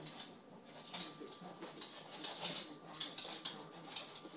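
Small dog scratching and scrabbling at the floor in a quick, irregular run of short scratchy strokes.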